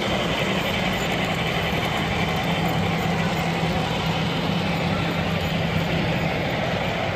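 Steady din of a crowded exhibition hall, many voices talking at once over a constant hum, with an HO scale model train running on its layout.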